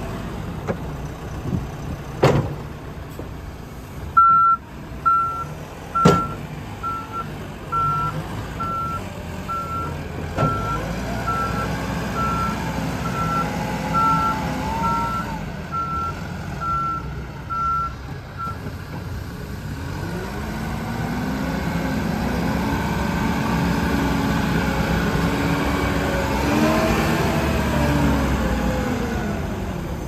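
2012 Case 580SN backhoe's diesel engine running while its backup alarm beeps at a steady pace, about one and a half beeps a second, from about 4 s to 18 s into the stretch. A couple of sharp clanks come in the first few seconds, and the engine revs up under load for the last several seconds.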